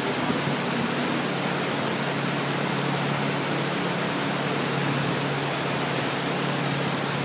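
Steady rushing fan noise with a low hum underneath, unchanging throughout.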